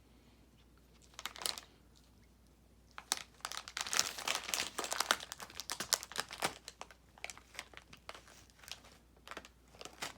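A treat bag crinkling and crackling as a cat paws and bites at it to get it open: a short burst about a second in, then a long busy stretch of crinkling, thinning out to a few scattered crackles near the end.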